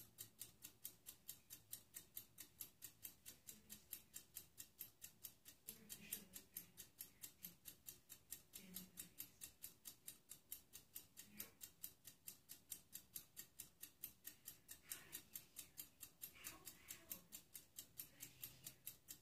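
Faint, even ticking, about four ticks a second, with faint voices in the distance now and then.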